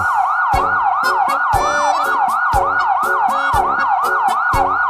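Emergency-vehicle siren sound effect, a fast yelp that repeats a falling sweep about three to four times a second, over background music with a steady beat.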